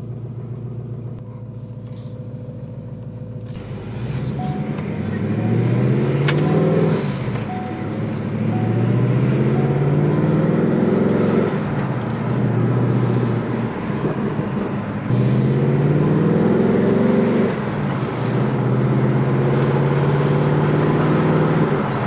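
Supercharged Ford Mustang GT's 5.0 V8 idling, then pulling away and accelerating up through the gears, heard from inside the cabin. The engine pitch climbs and drops back at each upshift, four or five times.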